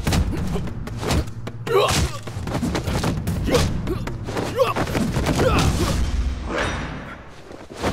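Film fight sound effects: a quick run of punch and kick impacts and thuds with grunts and yells, over a music score, easing off about seven seconds in.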